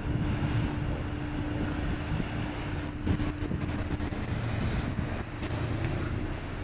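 Wind buffeting the microphone over the steady low drone of ship engines, with a constant hum tone running through it.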